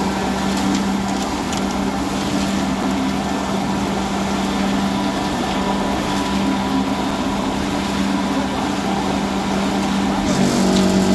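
JZC 350 drum concrete mixer running steadily with a constant mechanical drone; near the end the sound briefly swells and grows a little richer.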